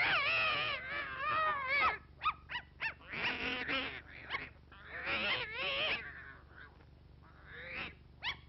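Cartoon animal cries from a dog and a cat: a run of wavering, pitched howls and yowls with short yips between them, dropping away for about two seconds near the end. The sound is thin, with no high end.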